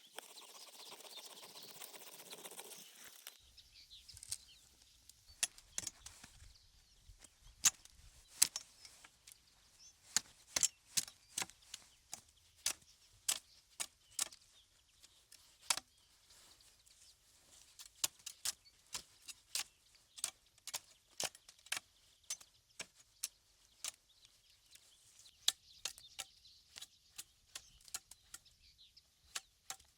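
A few seconds of rustling, then a long run of sharp, irregular clicks and snaps of sticks being handled, about one or two a second.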